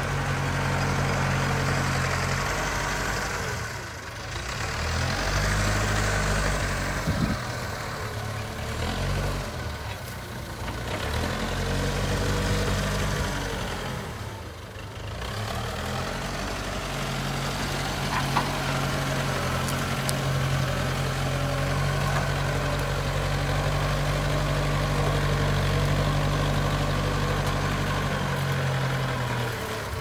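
Diesel engine of a JCB 3CX backhoe loader running while it pushes brush with its front bucket. The engine revs rise and fall in the first half, then hold steady at higher revs before dropping near the end.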